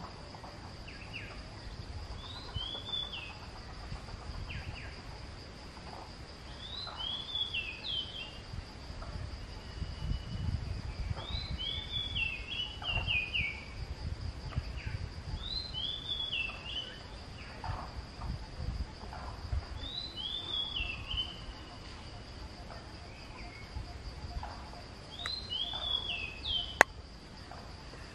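A bird singing the same short, falling phrase about every four and a half seconds, over a steady high insect drone and a low wind rumble. A single sharp click sounds near the end.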